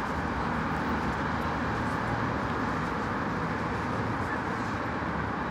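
Steady street ambience dominated by the hum of passing traffic.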